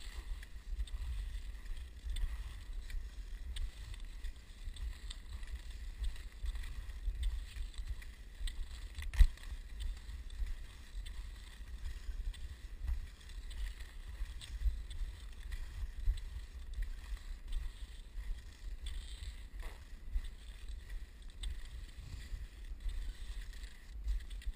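Skis swishing over packed snow, with a low rumble of wind and motion on the microphone and one sharp knock about nine seconds in.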